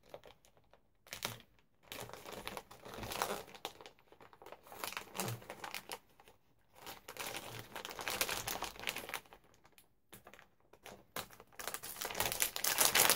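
Crinkling and rustling of a bag of craft papers being opened and its contents handled, in irregular bursts with short pauses, busiest near the end.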